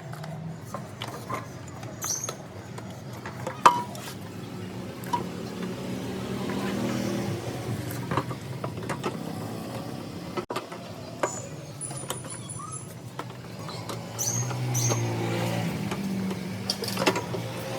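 A motor vehicle engine running steadily, swelling louder twice, with scattered clicks and clinks over it.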